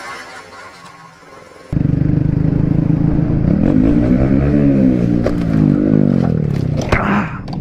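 Motorcycle engine pulling hard, cutting in suddenly after a second and a half of fainter road noise. Its pitch rises and falls as it revs, and a sharp knock comes near the end.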